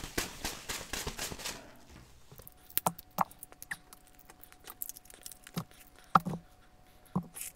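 Rustling and crackling of snow crab shell bits being brushed off clothing, dying away after about a second and a half, then a few scattered sharp clicks and snaps of snow crab shell being picked apart by fingers.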